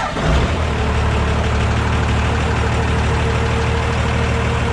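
The Grumman van's engine starts up almost at once and settles into a steady idle, with a steady whine over the low running hum.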